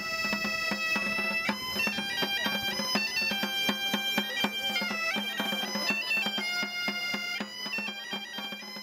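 Galician bagpipes (gaitas) playing a lively tune over a steady drone, with a hand drum beating time; the music fades out near the end.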